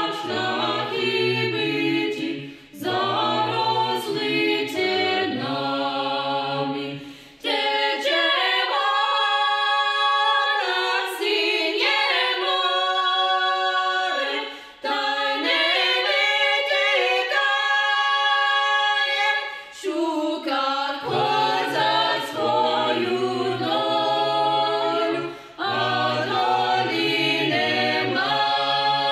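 Small mixed choir of seven voices singing a cappella in Ukrainian, in phrases broken by short breaths. About seven seconds in, the lowest voices drop out and the upper voices hold chords alone, until the low voices come back in about thirteen seconds later.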